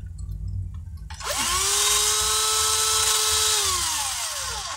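Small handheld electric drill spinning up about a second in and running steadily for about two and a half seconds. It then winds down as the trigger is released, and starts up again right at the end.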